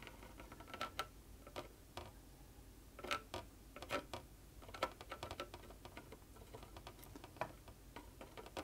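Faint, irregular small clicks and crackles from a soldering iron working Chip Quik low-melt solder and flux into the legs of a surface-mount chip on a circuit board, a few ticks a second with louder ones now and then.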